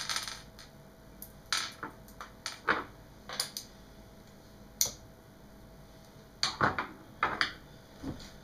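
Scattered sharp clicks and light knocks of a screwdriver and small parts being handled and set down on a desk, about a dozen spread through, with a few close pairs later on.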